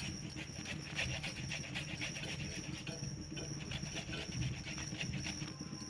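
Water with tulsi leaves heating in a pot on the stove for kadha: a steady hiss with small crackling ticks, busiest in the first few seconds.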